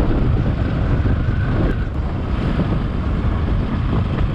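Motorcycle ridden slowly over a rough dirt track, its engine running steadily under heavy wind rumble on the microphone.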